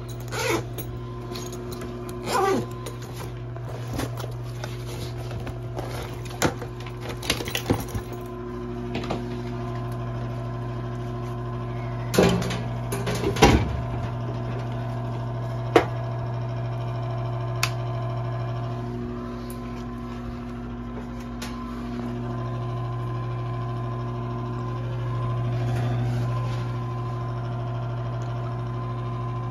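Intertherm mobile home furnace's draft inducer motor running with a steady electrical hum. Over it come scattered clicks and knocks of tools and multimeter leads being handled, mostly in the first half.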